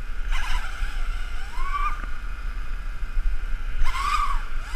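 Small multirotor's SunnySky R2205 2300KV brushless motors whining in flight, the pitch swooping up and back down several times as the throttle is worked, over a steady low wind rumble.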